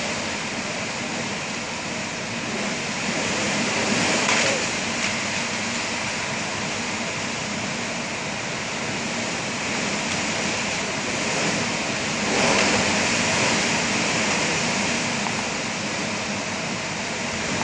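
Hurricane-force wind blowing through trees with driving rain, a steady rushing noise that swells in gusts about four seconds in and again around twelve seconds.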